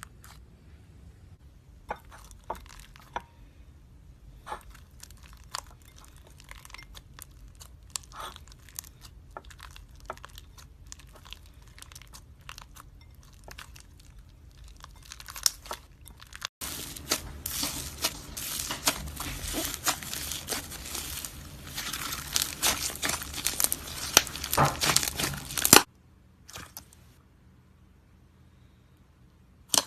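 Slime being poked, pressed and stretched by hand: scattered sticky clicks and pops, then, a little over halfway through, a louder, dense stretch of crackling and crinkling that stops abruptly.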